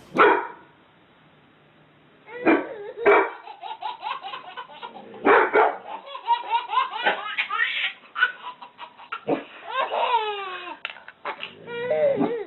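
A dog barking in a few short, sharp barks, and a baby laughing in quick bouts, some falling in pitch.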